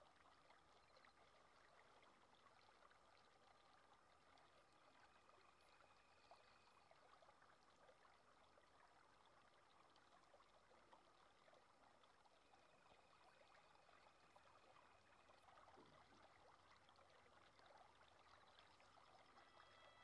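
Near silence: a faint, steady hiss of room tone.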